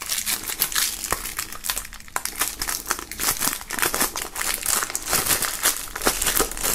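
Cellophane shrink-wrap crinkling and crackling as it is pulled off a plastic CD jewel case, in many rapid, irregular crackles.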